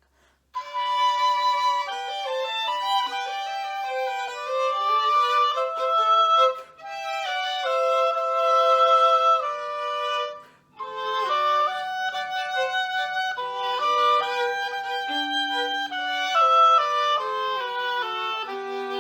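A two-instrument classical duet: two melody lines played together in held and stepping notes, starting about half a second in, with two brief pauses between phrases.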